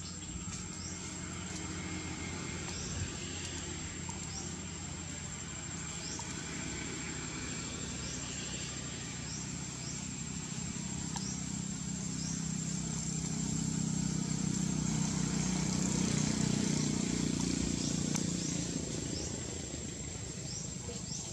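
Outdoor ambience with a low engine hum that swells in the second half and fades near the end, as of a vehicle passing nearby. Over it run a steady high whine and short bird-like chirps repeating about once a second.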